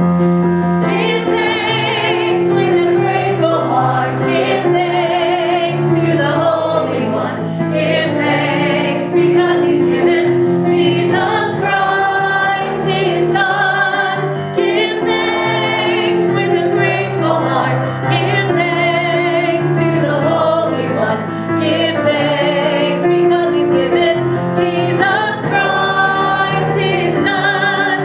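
Church congregation singing a hymn with piano accompaniment, led by a woman's voice with a wavering vibrato.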